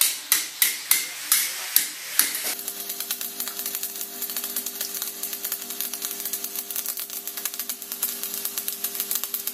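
Hammer blows ringing on metal, about two or three a second, for the first two seconds or so. Then an electric arc welder takes over: a dense, steady crackle of the arc over the machine's steady hum.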